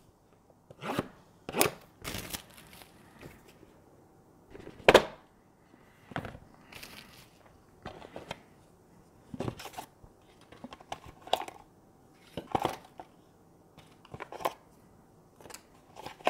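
A small cardboard camera box being opened and emptied by hand: scattered tearing, rustling and tapping of packaging and parts, with the sharpest sound about five seconds in.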